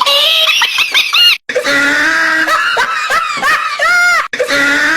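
Recorded laughter sound effects played back to back: high-pitched, squealing laughs in rising and falling bursts, with abrupt cuts between clips about a second and a half in and again near the end.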